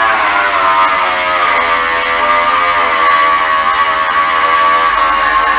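Electric motor of a workshop machine running at a steady high whine, loud and close.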